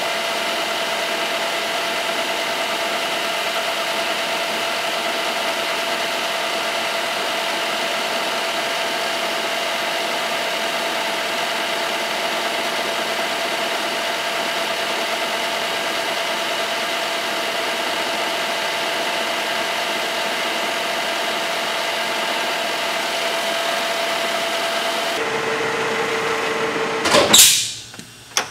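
Metal lathe running steadily with its three-jaw chuck spinning while sandpaper polishes the crowned muzzle of a pistol barrel. About 25 s in the running tone drops lower as the lathe is shut off, and a loud brief sound comes just before it stops.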